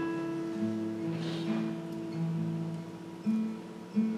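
Soft instrumental music: an acoustic guitar playing slow chords with long held notes that change every second or so.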